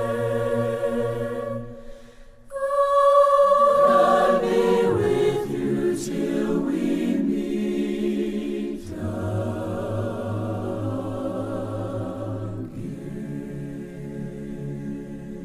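Background choral music: voices holding long, sustained chords that change every few seconds, with a short drop in level about two seconds in.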